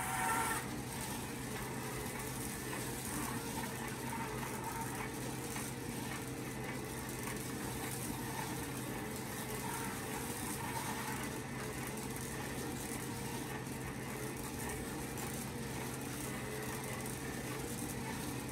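Electric motors of an R2-D2 replica droid's dome mechanism running steadily, with a constant hum, while the periscope and panels extend and the dome turns. A regular clicking runs through it, caused by the dome drive wheel being out of balance.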